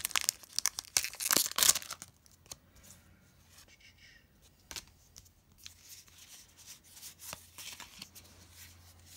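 Foil wrapper of a Pokémon card booster pack being torn open and crinkling for about two seconds, then quieter rubbing and light ticks as the cards are pulled out and slid through the hands.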